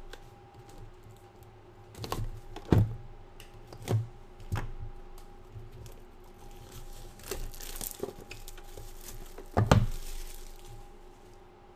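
Plastic shrink-wrap being torn off a trading-card box and crinkled, with a series of sharp knocks as the box is handled and set down, the loudest near the end.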